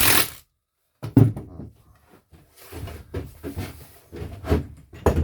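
Irregular knocks and clatter of things being handled, starting with one sharp knock just after a second in.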